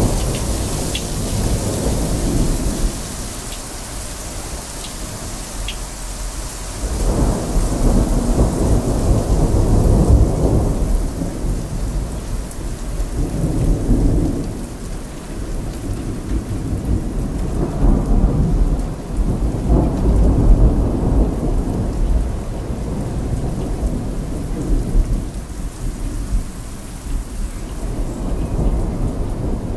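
Heavy rain falling steadily, with thunder rumbling low underneath; the rumble swells and fades several times, loudest about seven to eleven seconds in and again around eighteen to twenty-one seconds.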